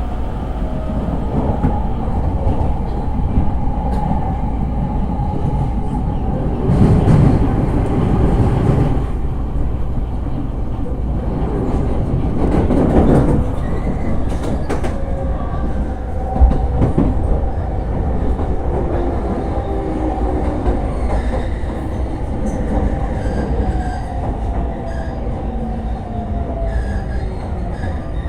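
Running sound of an E231 series 500 Yamanote Line electric train heard from inside the car: steady wheel-on-rail rumble with the traction motors' whine. Two louder rattling swells come about 7 and 13 seconds in, and a sharp clack at about 16 seconds. In the second half the motor tones fall in pitch as the train slows.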